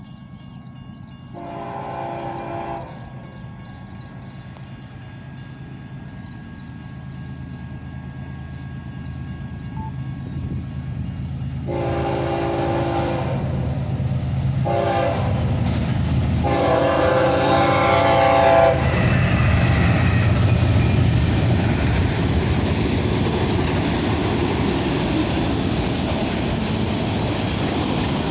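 BNSF freight train's diesel locomotive horn sounding one blast, then about ten seconds later a long, a short and a long blast, while the locomotives' engine rumble grows steadily louder as the train approaches. After the last blast the train passes with a loud, steady rolling noise.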